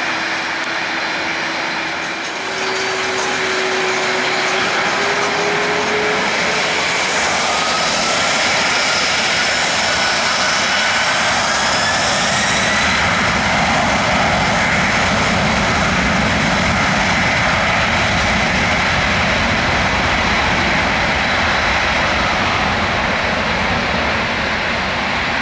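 Boeing 767-300ER's twin turbofan engines spooling up for takeoff: a whine rises in pitch over the first dozen seconds, then the engines run at takeoff thrust with a steady, loud rush as the airliner rolls down the runway toward lift-off.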